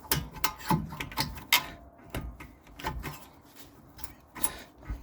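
Irregular metallic knocks and clanks, some with a short ring, as a rear brake caliper is forced loose with a tool; the loudest knock comes about a second and a half in.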